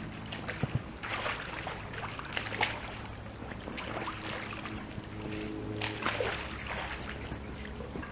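Pool water splashing and sloshing in irregular bursts as booted feet kick at the surface beside an inflatable float, over a steady low hum.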